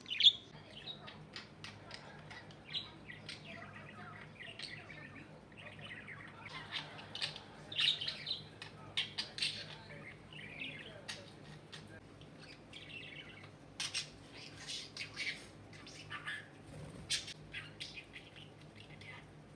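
Pet budgerigar chattering: a quick, uneven run of short chirps, clicks and warbles.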